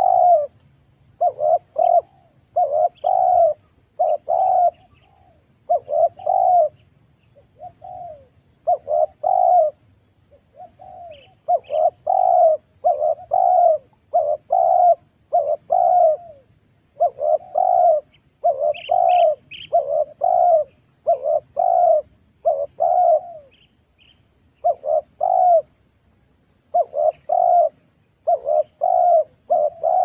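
Spotted dove (tekukur) cooing over and over, its notes coming about one a second in runs broken by short pauses. It is a recorded lure call for drawing in wild spotted doves.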